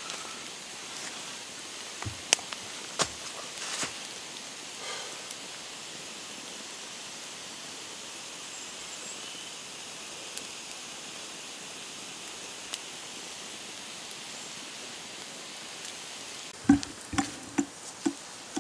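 Open wood fire burning under a hanging cast-iron Dutch oven: a steady hiss with a few sharp crackles and pops in the first four seconds. Near the end comes a quick run of about five knocks.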